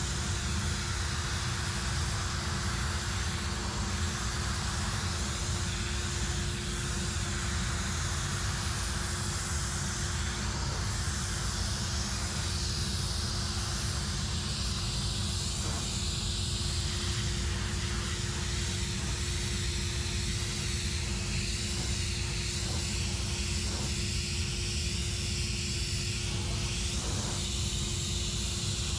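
Steam cleaner lance blasting hot steam onto a stone garden ornament: a continuous loud hiss over a steady low drone and hum from the running machine.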